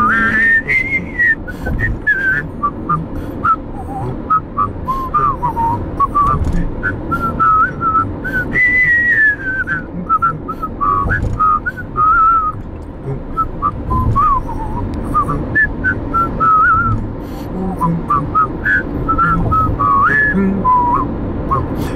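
Human mouth whistling of a melody, the pitch gliding between notes, over the steady low rumble of a car's road noise.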